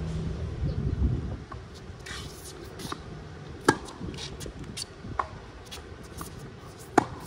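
Tennis ball struck by racquets during a rally: two sharp loud hits about three seconds apart, with a fainter hit between them. Low traffic rumble dies away about a second in.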